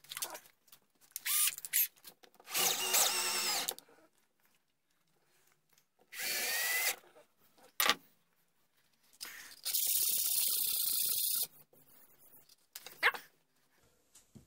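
Power drill running in three short bursts, its whine wavering in pitch, driving a screw through a brass buttplate into a wooden gunstock. There are a few small clicks and knocks between the bursts, and the last burst is the longest, about two seconds.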